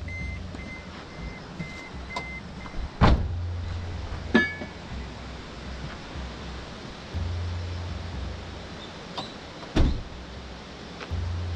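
Kei truck's door-open warning chime beeping about twice a second over a low hum, stopping after about two seconds; then a heavy thump as the truck door shuts about three seconds in, a metallic clank with a short ring a second later, and another thump near the end.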